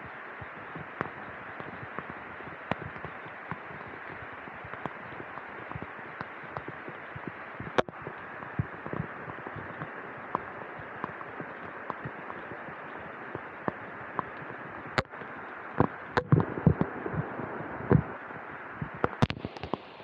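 Steady hiss of rainfall, broken by irregular sharp ticks and taps of drops striking close to the microphone; the taps come thicker and louder from about fifteen seconds in.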